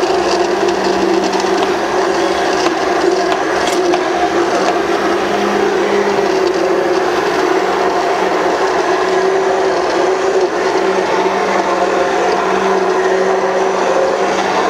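Immersion blender running steadily at one speed, its blade churning potato pieces into a creamy liquid in a stainless steel pot.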